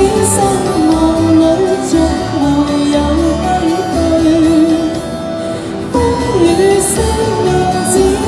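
A woman singing a Cantonese ballad into a microphone over backing music, amplified through a small street PA speaker, dipping briefly softer about five seconds in.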